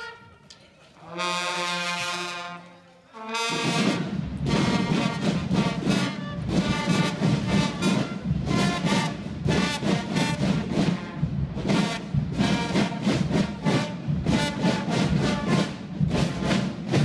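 Guggenmusik carnival band of brass and drums playing: a held brass chord about a second in, then from about three and a half seconds the full band playing loud, rhythmic march music with steady drum beats.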